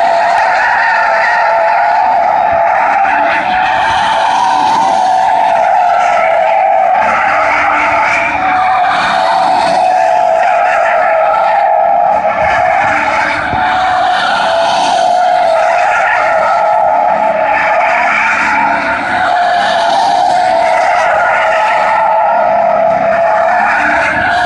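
Pickup truck's tyres squealing without a break as it spins donuts on concrete, burning rubber, one loud squeal wavering slightly in pitch, with the engine running underneath.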